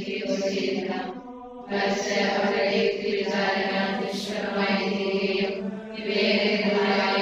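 Vocal chanting in the background: held, sung notes on a steady pitch, with short breaks about a second and a half in and near six seconds.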